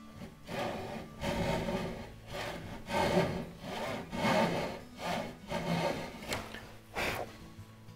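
Hand backsaw cutting into a wooden stringer in steady back-and-forth strokes, about one to two a second, as the cut for a notch is started on the corner.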